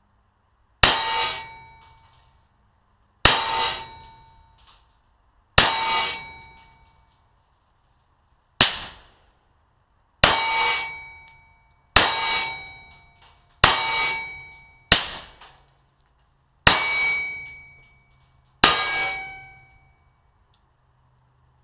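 Ten single shots from an AKM rifle in 7.62×39, fired at irregular intervals, each striking a steel gong target. Each hit is a sharp crack followed by a metallic ring that fades over about a second. The fourth hit rings hardly at all.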